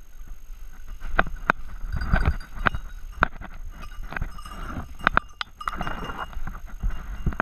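Someone pushing fast through dense woodland undergrowth: brush rustling against clothing and twigs snapping sharply several times, with a dog's bell ringing among it.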